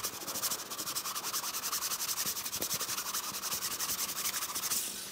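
Scotch-Brite sticky lint roller rolled over a dog-hair-covered sock: a steady, fast, evenly pulsed crackling rasp that stops just before the end.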